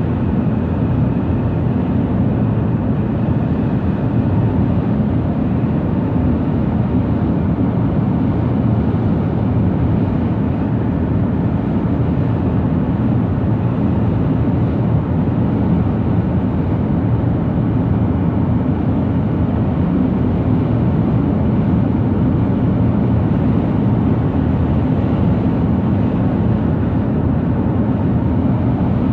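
Steady low rumble of a car cruising at highway speed, heard inside the cabin: tyre and road noise with the engine under it, even throughout.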